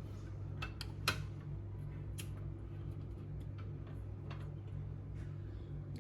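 Chicken adobo cooking in a pan: scattered, irregular sharp pops and clicks over a steady low hum.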